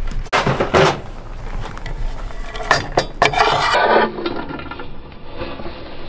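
A chef's knife scraping chopped shallot and garlic across a wooden cutting board and into a steel sauté pan: rasping scrapes, with a few sharp knocks and clicks of the blade against the board about halfway through.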